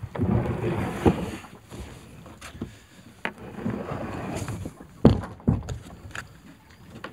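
Kayak hull being dragged up a grassy bank, scraping and swishing over the grass in pulls, with several sharp knocks, the loudest about five seconds in.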